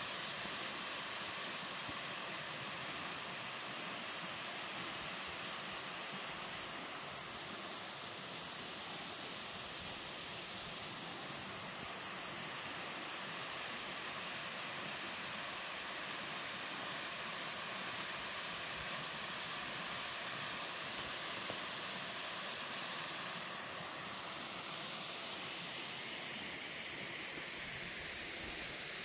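Mountain-stream waterfall running: a steady, even rush of falling water.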